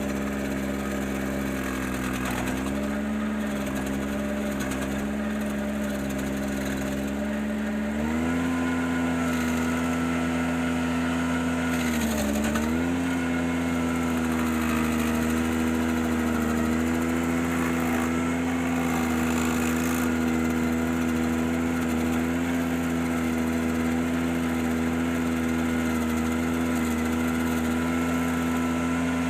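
Ventrac 4520Z compact tractor's engine running steadily, powering a KC180 stump grinder attachment. It steps up in level and pitch about eight seconds in. About twelve seconds in the pitch briefly pulls down and then recovers.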